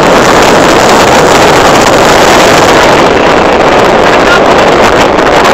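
Loud, steady wind rush buffeting a phone microphone on a moving motorcycle, with the motorcycle's engine and road noise mixed underneath.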